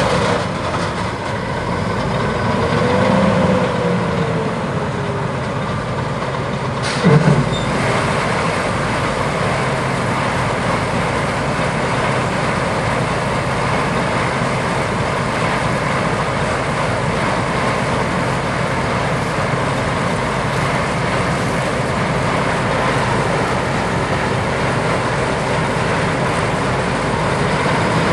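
Gleaner S77 combine harvester running steadily while cutting wheat, a dense, even mechanical din. A short, sharp knock sounds about seven seconds in.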